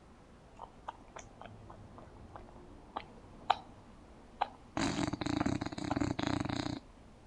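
English bulldog snoring in its sleep with its mouth open: a few small clicks and snuffles, then one loud fluttering snore of about two seconds near the end.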